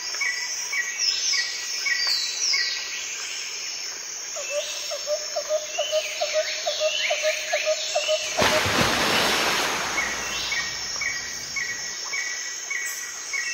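Background soundtrack of birds chirping, with short repeated chirps and falling calls, a fast run of low pulsed calls in the middle, and a burst of rushing noise about eight seconds in. The pattern repeats as a loop.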